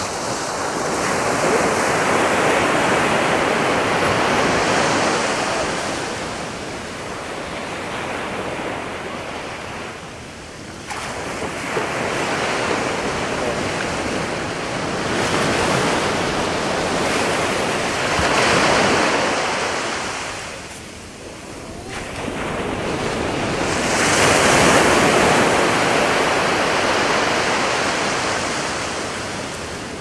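Atlantic Ocean surf breaking and washing up a sandy beach: a steady rush of water that swells and fades about four times as each wave comes in and draws back.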